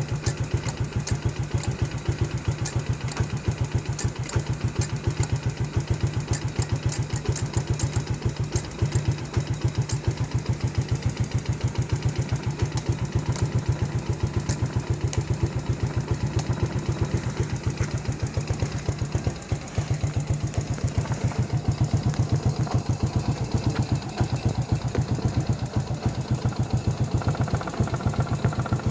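Car engine idling steadily with an even, rapid pulsing beat.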